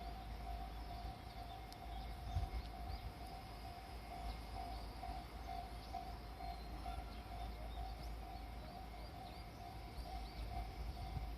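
Japanese railway level-crossing alarm ringing steadily, a repeating mid-pitched ding, with small birds chirping and a low rumble underneath.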